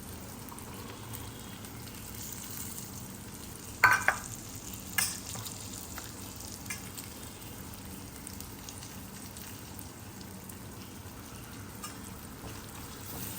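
Bottle gourd and soaked chana dal frying in spiced oil in a pan, a steady sizzle. About four seconds in a metal utensil clanks once against the pan with a short ring, and a lighter tap follows a second later.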